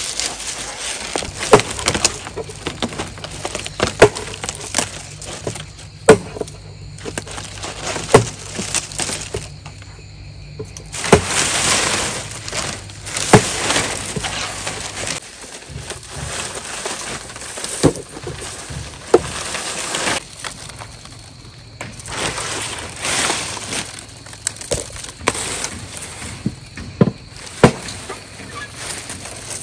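Loud, sharp knocks and cracks at irregular intervals, with stretches of rustling, crackling noise in between, over a faint steady hum.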